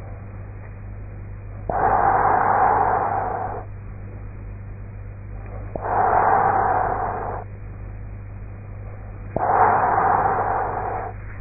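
A woman snoring through a half-open mouth: three noisy snoring breaths, each about two seconds long and about four seconds apart, each starting abruptly and fading off. A steady low hum runs underneath.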